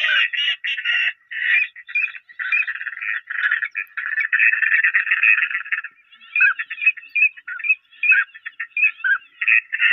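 Ducks quacking in quick, continuous runs of short calls, densest around the middle.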